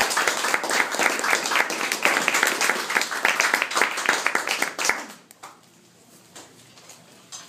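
A small audience applauding, which dies away about five seconds in.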